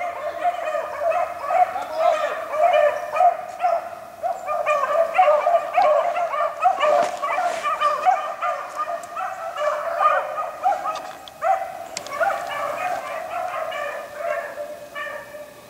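A pack of rabbit hounds baying together in full cry, many overlapping voices running a hot rabbit track fast, fading near the end.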